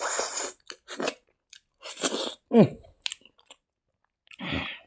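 Close-up mouth sounds of a person eating rice and curry by hand: wet chewing and crunching in irregular bursts, with a brief sound that falls in pitch about two and a half seconds in.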